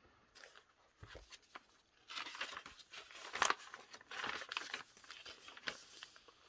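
Paper pages and cards of a handmade junk journal rustling and crinkling as they are handled and leafed through. A few soft strokes in the first two seconds, then denser, louder rustling from about two seconds in.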